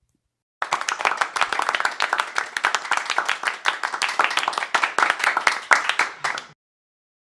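Clapping: a dense, quick run of hand claps starting about half a second in, lasting about six seconds and cutting off abruptly.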